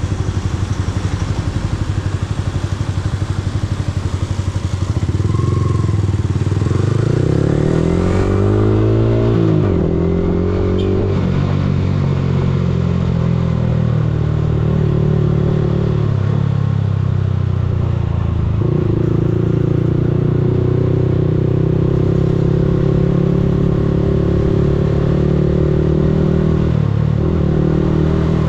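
Yamaha R15M's 155 cc single-cylinder engine idling, then pulling away: the revs climb for a few seconds and drop at a gear change about nine seconds in. It then runs on steadily at low road speed, with the revs dropping twice more at later gear changes.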